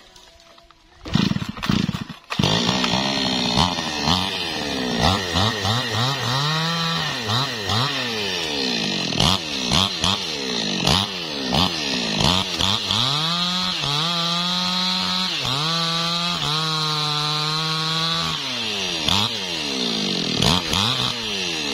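New West 628 two-stroke chainsaw crosscutting a log. After a short lull at the start, the engine runs at high revs, its pitch repeatedly dropping and rising again as the chain bites into the wood and frees up.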